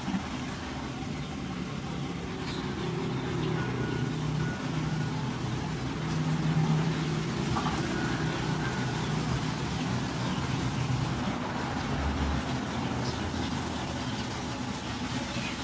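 Steady low engine hum, like a motor vehicle running nearby, swelling slightly about halfway through.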